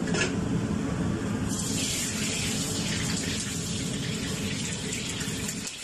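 Water running from the wok station's tap into a hot wok and hissing, over the steady low rumble of the gas wok burner. The hiss comes in about a second and a half in; the burner's rumble drops away near the end.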